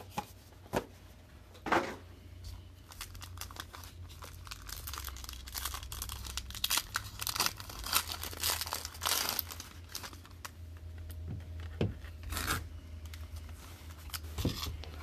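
A foil trading-card pack (2018 Panini Majestic football) being torn open and crinkled by hand, with dense crackling that is loudest in the middle. A few sharp knocks come in the first two seconds as the box is handled.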